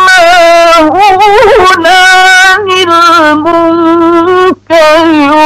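A man's voice chanting the Quran in the drawn-out melodic mujawwad style, holding long sustained notes. About a second in comes a quick ornamented run of wavering notes, and near the end there is a brief break for breath.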